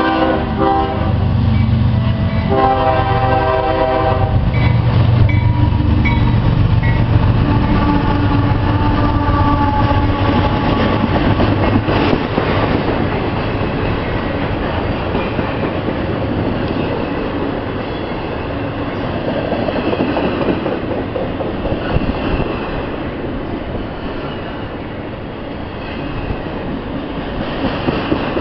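CSX intermodal freight train passing close by, led by GE diesel locomotives: the horn blows a blast that ends about a second in and another from about two and a half to four seconds in. Then the locomotives rumble past, followed by the steady rattle and clatter of the intermodal cars rolling by.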